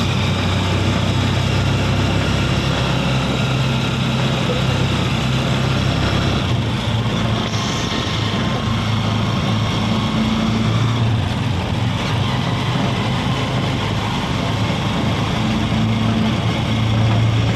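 A vehicle's engine running steadily on an uphill climb, with road and wind noise. The engine hum eases about six seconds in and strengthens again near the end.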